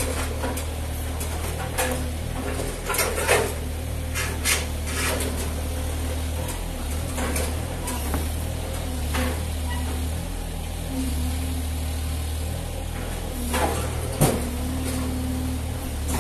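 Yanmar SV18 mini excavator's three-cylinder diesel running steadily, with scattered clanks and scrapes of a metal cabinet and rubble as the machine handles it; the loudest knocks come about three seconds in and again around fourteen seconds.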